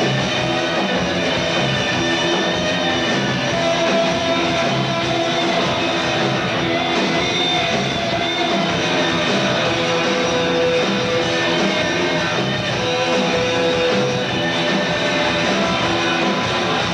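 Live rock band playing amplified electric guitar and bass guitar, a dense continuous passage with a few long held notes.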